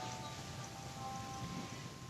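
Faint electronic tune of slow, held notes, one note changing to the next about once a second, over a low steady hum.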